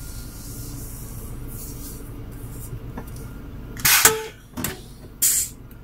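A steady low engine rumble, like an engine idling, with three short loud whooshing noises near the end, the loudest about four seconds in.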